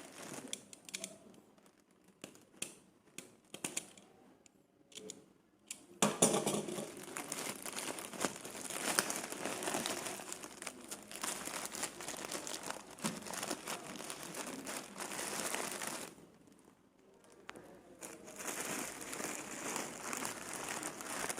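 Plastic mailer bag being handled and torn open by hand: sparse crackles at first, then steady crinkling and rustling of the plastic from about six seconds in, pausing briefly, then starting again near the end.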